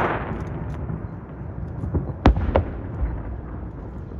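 Fireworks: a fading crackle from a burst overhead, then two sharp bangs about a third of a second apart a little past two seconds in, over a low rumble.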